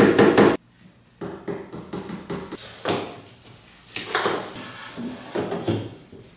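Knocking and tapping on a white flat-pack particleboard desk and hutch during assembly: a quick run of louder knocks in the first half-second, then after a short break scattered lighter taps and knocks of hardware being fitted to the hutch shelf.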